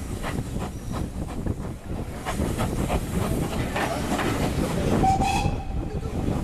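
Steam-hauled passenger train pulling away, heard from a carriage window: a rolling rumble with a run of knocks and clicks from the train, and a brief high tone about five seconds in.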